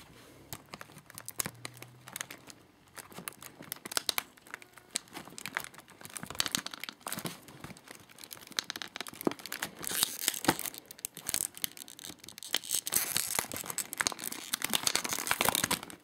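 Plastic toy packaging crinkling and tearing, handled close to the microphone, in a dense run of sharp crackles that grows busiest over the last few seconds and stops abruptly.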